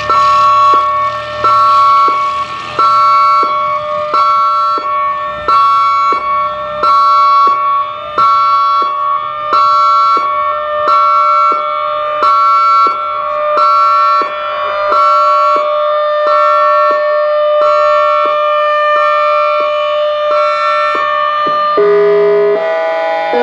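Outdoor warning siren sounding a pulsed alert tone, its higher tones switching on and off about one and a half times a second over a steady underlying tone. Near the end it changes to a run of stepped chime-like notes.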